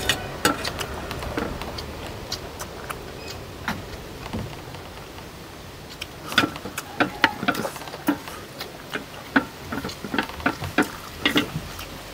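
Irregular clicks and clinks of eating utensils against plates while people eat. They are sparse at first and come in quick clusters from about halfway through.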